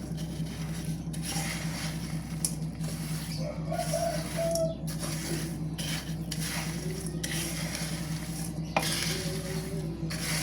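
A utensil stirring and tossing crisp fried anchovies, shallots, garlic and chilies together, in repeated scraping, rustling strokes with light clinks. A steady low hum runs underneath.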